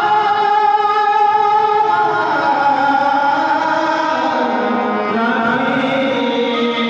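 Instrumental interlude of a Bhojpuri devotional song: a melody line of long held notes that slide between pitches over the band's accompaniment.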